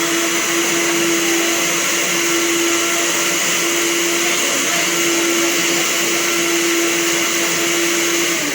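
Electric blender running steadily at full speed, pureeing chopped red onion pieces with a little water, its motor holding one steady pitch. Right at the end it is switched off and the motor's pitch starts to drop as it spins down.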